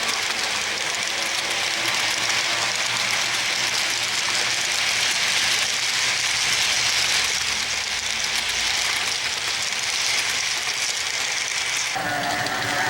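Model train running on its layout with no on-board sound: the wheels roll along the track as a steady, fairly loud hiss with faint rapid clicking. Near the end it gives way to a lower hum with a few steady tones.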